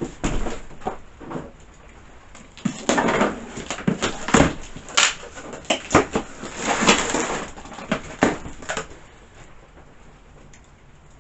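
Cardboard box and packaging being handled while the chainsaw parts are unpacked: rustling with a string of knocks and clicks, dying down near the end.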